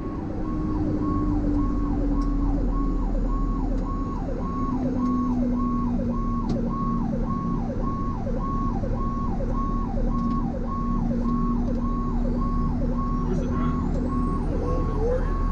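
Fire apparatus electronic siren cycling quickly, about one and a half times a second, each cycle a held high note that drops off. It sounds over a steady low drone of the truck running down the road.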